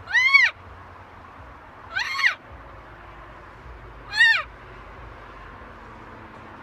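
Green-winged macaw giving three short calls about two seconds apart, each rising and then falling in pitch.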